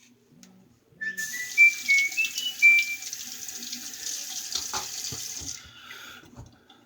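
Tap water running into a sink for about four and a half seconds, with a phone's text-message alert over it near the start: a short run of rising electronic notes. A few light knocks follow as the water stops.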